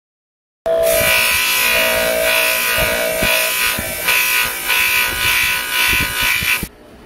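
Electric bench motor spinning a polishing/grinding wheel with a steel knife blade held against it: a steady grinding hiss over a motor whine. It starts suddenly about a second in and drops away sharply near the end.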